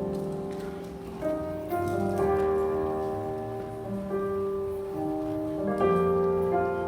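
Keyboard playing slow, held chords that change every second or two.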